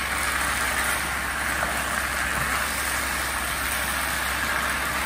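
Stir-fried rice noodles, bean sprouts and paneer sizzling steadily in a non-stick pan over a high gas flame while being stirred with a spatula.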